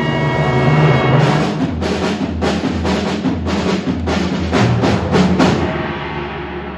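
Full orchestra playing: a held chord, then about ten heavy drum strokes over the orchestra, after which the music falls back to a softer held chord near the end.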